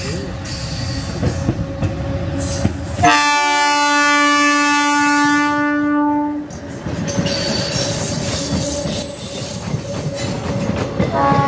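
ICF CNG DMU passenger train passing at close range: wheels rumbling and clattering over the rails, with a long horn blast of about three seconds starting some three seconds in. After the horn the coaches rattle past with a faint high wheel squeal, and a horn sounds again near the end.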